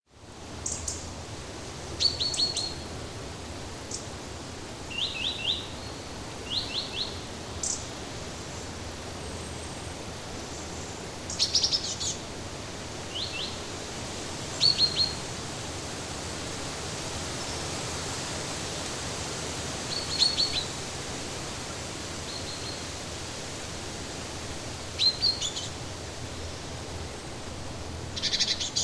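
Forest ambience: small birds calling in short chirps, mostly quick runs of two to four high notes, every few seconds over a steady background hiss.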